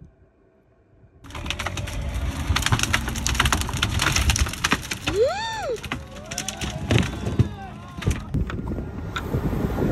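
Sherp amphibious ATV crushing its way into a pile of dead brush: dense cracking and splintering of branches from about a second in, over the low steady run of its diesel engine. A voice rises and falls briefly about five seconds in.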